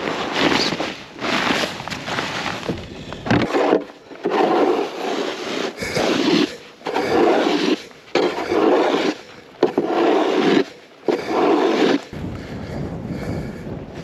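Snow being crunched and scraped on the ice in a regular run of strokes, about one every second and a quarter.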